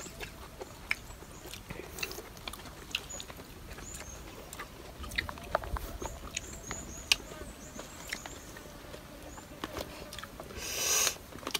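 Quiet sounds of people eating with their hands: scattered small clicks and smacks, with faint high bird chirps in the background. A short breathy hiss comes near the end.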